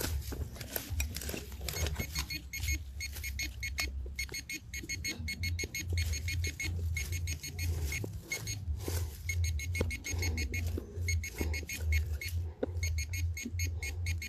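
Metal detector sounding: a rapid run of high electronic beeps over a low pulsing tone, with scattered sharp clicks.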